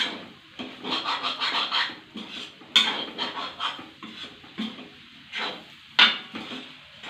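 A cooking utensil scraping and stirring chopped chapati and scrambled egg around a pan in irregular strokes, with a few sharp knocks against the pan, the loudest about three and six seconds in.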